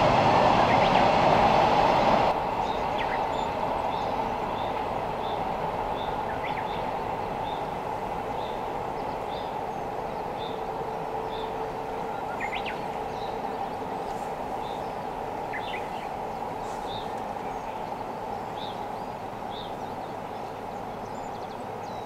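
Freight train's container wagons rolling across a concrete viaduct, a steady rumble that drops abruptly about two seconds in and then slowly fades. A small bird chirps about once a second over it.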